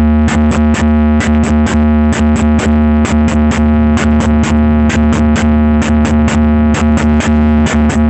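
Loud electronic music from a large outdoor DJ speaker-box stack: a held synthesizer chord over a deep, steady bass, cut by quick sharp beats about three or four a second.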